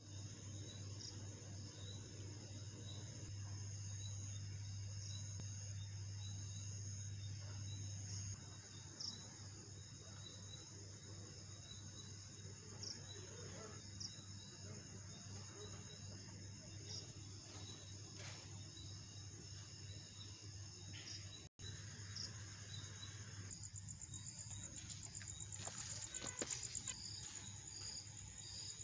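Crickets and other night insects chirping steadily in high-pitched trills, with a faster trill joining near the end. A steady low hum sounds underneath for the first eight seconds or so.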